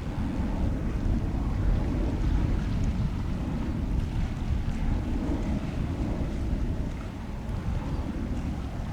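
Wind buffeting the microphone over a low, uneven rumble.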